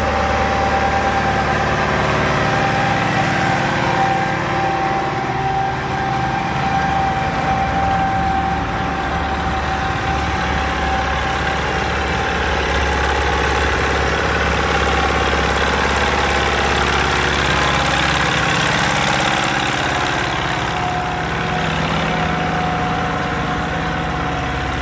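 Vintage diesel tractor engines running steadily while pulling ploughs through a field, with a steady whine on top. The deep engine note shifts about eighteen seconds in.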